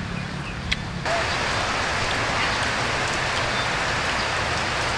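Steady hiss of rain falling, starting abruptly about a second in. Before it there is a quieter low hum with a single click.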